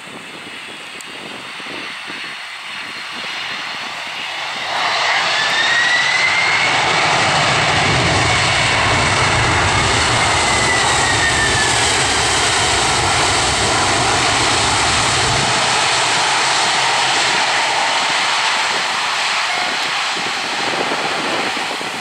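Japan Airlines Boeing 767-300's twin jet engines on the landing rollout. The sound swells sharply about five seconds in and stays loud, with a high whine that climbs and then falls in pitch as the jet rolls past. A deep rumble underneath drops away about fifteen seconds in.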